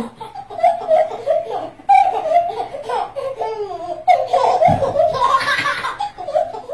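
A baby laughing in repeated high-pitched giggles.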